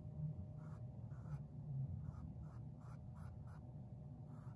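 Small paintbrush stroking paint onto a canvas: soft, quick brushing strokes, about three a second, over a low steady hum.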